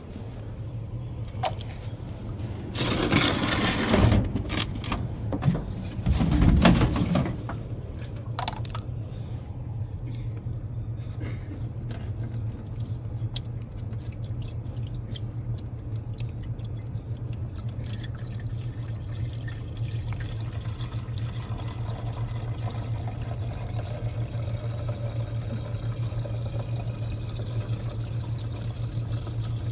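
Water pouring and trickling over a steady low hum, with two louder noisy rushes in the first seven seconds.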